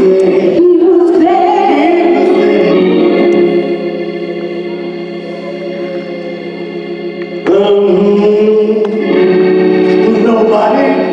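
Hammond-style console organ holding sustained gospel chords, with a man singing over it in the first few seconds. The organ falls softer about three and a half seconds in and swells back up louder about seven and a half seconds in.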